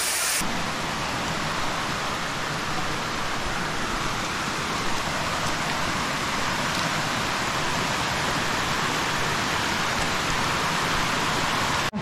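Shallow mountain creek running over rocks in small cascades: a steady rush of flowing water.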